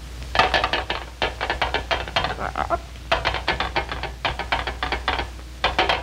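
Rapid runs of short, sharp clicks, in four bursts with brief pauses between them.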